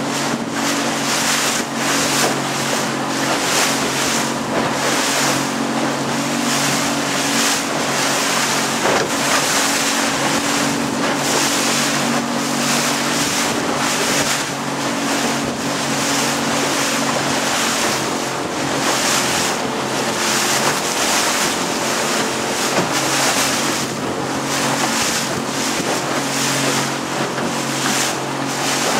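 A small boat's motor running at a steady pitch, under a loud rush of wind and water that swells and fades every second or so.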